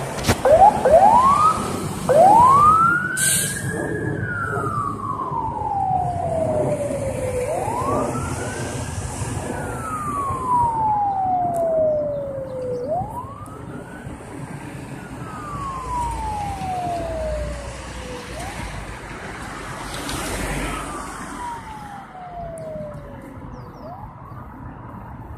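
Fire engine siren starting with a few quick short whoops, then wailing slowly up and down, each rise and fall taking about five seconds. It grows fainter as the engine drives away.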